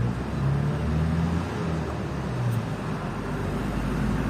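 Steady motor-vehicle engine hum with road noise; the low hum shifts in pitch now and then.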